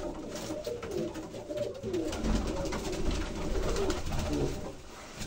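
Domestic pigeons cooing in a loft: repeated low, rolling coos with short gaps between them.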